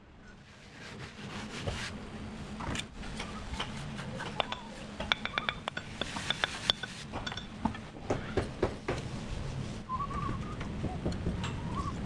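Bricks and mortar being worked by hand: a run of sharp clicks and knocks as clay bricks are set and tapped into place, over a steady low rumble. A few short whistled notes come near the end.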